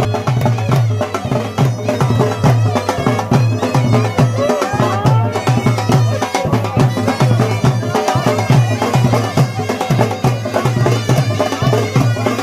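Dhol drum beating a steady rhythm, about two and a half strokes a second, under a shrill wind-instrument melody, the baja, that wavers and slides in pitch: Kashmiri village folk music.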